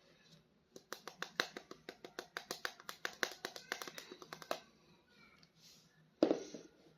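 A rapid run of light clicks and taps from handling plastic toy packaging, about seven a second for nearly four seconds. Near the end there is one short, louder sound.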